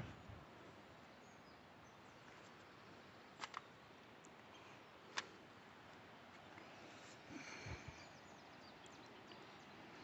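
Near silence: faint outdoor ambience with a few small clicks and faint, distant bird chirps.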